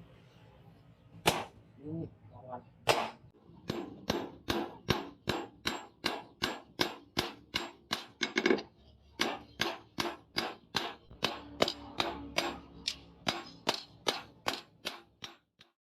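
Hammer striking steel on an anvil: two single blows, then a steady run of clanging blows, about two to three a second, each with a short ring, stopping shortly before the end.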